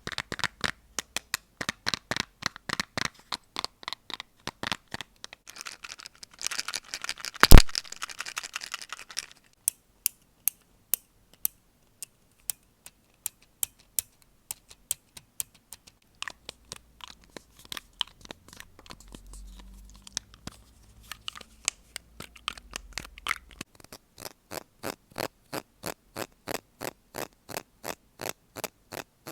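A string of close-miked ASMR triggers: quick tapping and scratching on objects, with one loud knock about seven and a half seconds in and an even, steady run of taps near the end.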